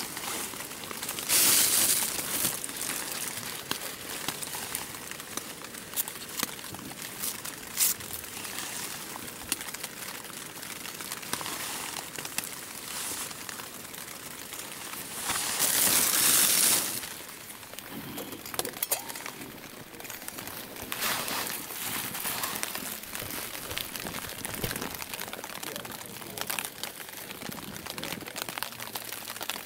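A plastic packet crinkling as its contents are shaken into a pot on a lit canister backpacking stove, in two loud spells, about a second in and again a little past halfway. Between them there is a steady hiss and scattered small crinkles and clicks.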